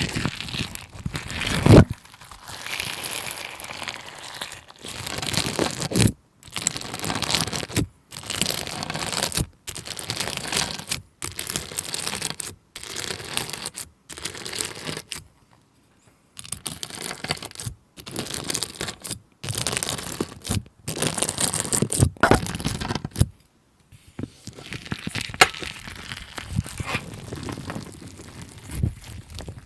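Slime being pressed and stretched by hand, crackling and crinkling in short runs of a second or two separated by brief silent gaps.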